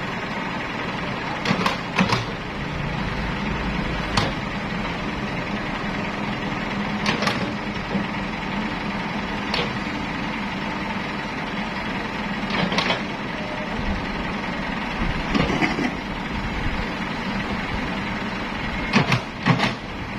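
Heavy machinery engines running steadily as a Komatsu PC78US excavator loads a mini concrete mixer truck, with sharp knocks or clanks every few seconds, two close together near the end.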